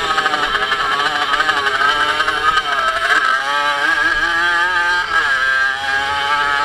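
Small racing motorcycle engine revving hard and close, its pitch climbing and falling as the rider accelerates and backs off through corners. It drops off noticeably about three seconds in and again near the end before pulling up again.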